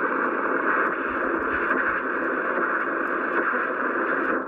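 Static and noise from a Siemens E-310 marine valve receiver's loudspeaker, tuned on the AM broadcast band with no clear station. The hiss holds steady, then dips briefly near the end.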